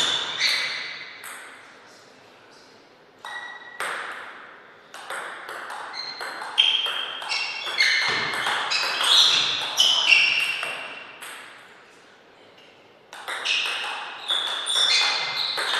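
Table tennis ball being hit back and forth: quick runs of sharp clicks as the plastic ball strikes rackets and bounces on the table, each hit ringing briefly. Two pauses between points break up the rallies, and the hits resume about three seconds in and again near the end.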